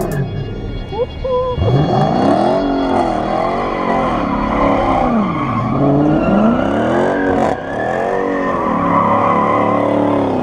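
A car doing donuts: the engine revs up and falls back over and over, about every two seconds, while the spinning rear tires squeal.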